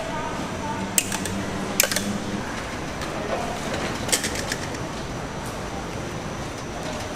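A few sharp, isolated clicks and taps of utensils at a street-food stall, about a second in, near two seconds, and a small cluster around four seconds, over a steady background hubbub of a busy market.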